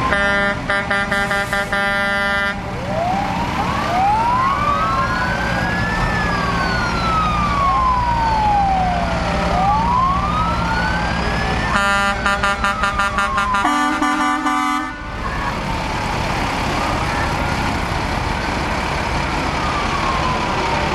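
Emergency vehicle sirens wailing, rising and falling and overlapping one another, with two long, choppy air horn blasts, one at the start and another about twelve seconds in, over the low rumble of truck engines.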